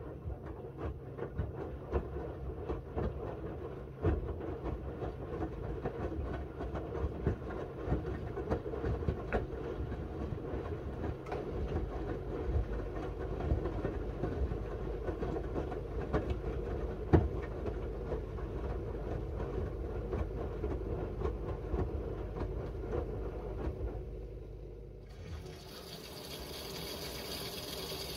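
Miele W1 front-loading washing machine mid-wash: the drum turning with wet laundry and water sloshing, with many irregular knocks and clicks. Near the end the rumble drops and a steady hiss sets in.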